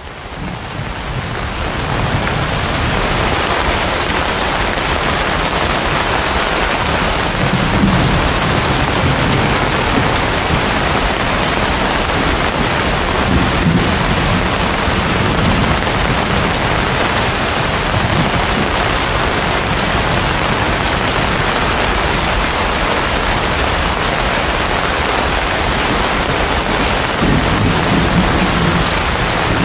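Heavy rain pouring steadily onto broad banana and palm leaves, fading in over the first couple of seconds. A few low rumbles of thunder sound under it.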